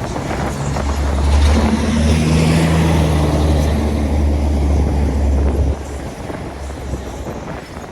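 A motor vehicle's engine running close by, with steady engine tones over a heavy low rumble that cuts off sharply about six seconds in.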